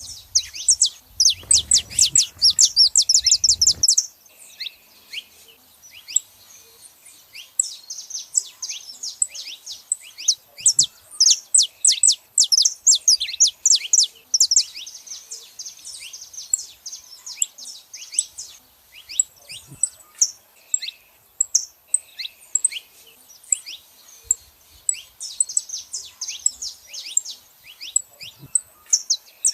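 Saffron finches calling in rapid bouts of sharp, high chirps, with short pauses between bouts. A low rumble sits under the chirping for the first four seconds or so.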